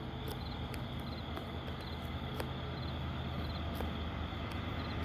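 Diesel locomotives of an approaching freight train, a low steady engine rumble growing slowly louder, with faint cricket chirps.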